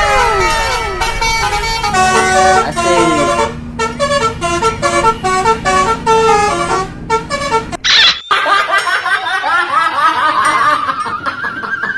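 Indonesian multi-tone 'telolet' bus horn playing a quick melody of short stepped notes, with sliding glides near the start. About eight seconds in there is a brief loud burst, followed by rising, wavering tones.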